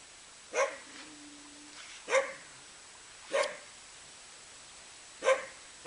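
A six-week-old rabbit dachshund puppy barking: short, sharp single barks with pauses of one to two seconds between them, about five in all, the last right at the end.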